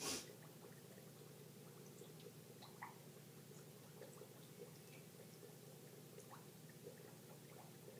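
Near silence: room tone with a steady low hum, a single short knock right at the start and a few faint, scattered clicks.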